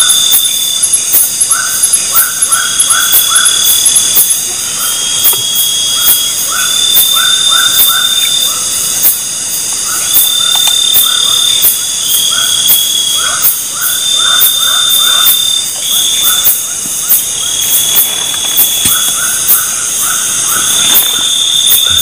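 Loud night chorus of forest insects: several steady high buzzes and long repeated trills, a very fast high ticking, and short lower notes in quick runs of three to five every second or two.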